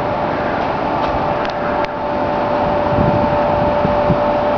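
Steady mechanical hum with two constant tones over an even rushing noise.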